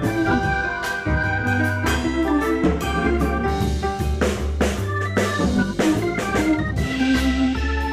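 Background music: an upbeat electronic organ tune with a bass line and a steady drum beat.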